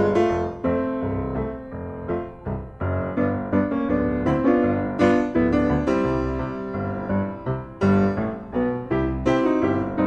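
Background piano music: a steady run of struck notes, each ringing and fading.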